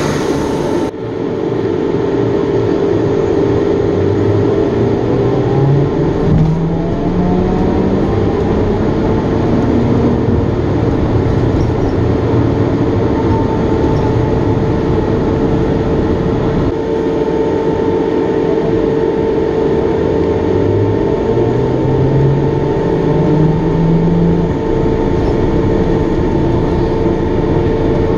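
Interior of a trolleybus in motion: a loud, steady drone from its cooling fan, with the electric traction motor's whine rising in pitch twice as the bus accelerates.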